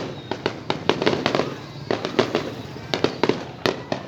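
Fireworks display: shells bursting overhead in quick, irregular clusters of sharp cracks and bangs, several a second at the peaks.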